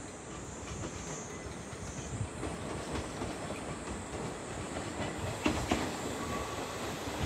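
JR Shikoku KiHa 185 series diesel railcar, coupled to a KiKuHa 32 trolley car, running into a station at low speed. Its rumble grows steadily louder as it approaches, with wheel clacks over the rail joints and points, two sharp ones about five and a half seconds in.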